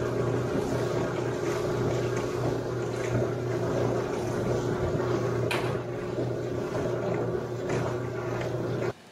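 A machine running with a steady hum, with a few scattered clicks and knocks. The sound cuts off abruptly near the end.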